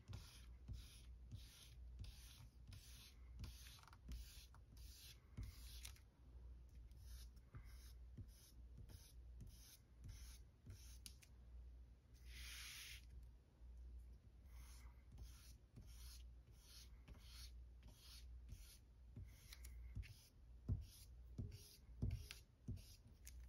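Kneaded eraser dragged over the aged paper cover of a 1945 comic book to dry-clean surface dirt. It makes faint, scratchy rubbing strokes, about two to three a second at first and sparser later, with one longer rustle about halfway through.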